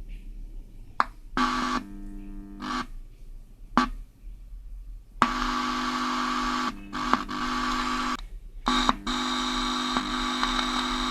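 Cassette recorder's loudspeaker giving out a steady buzzing hum with hiss, switching on and off abruptly several times, with a long stretch from about five seconds in. Sound is coming through the amplifier again, which had been silent after a power surge until a faulty resistor beside the amplifier IC was dealt with.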